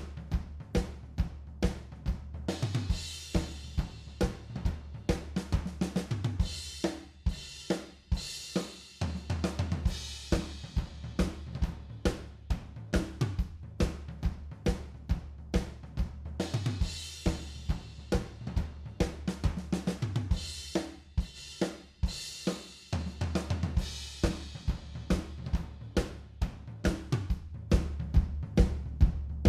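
Recorded drum kit and bass playing a groove: kick, snare, hi-hats and cymbals hit in a steady fast beat, several hits a second, over a sustained bass line that changes notes every few seconds.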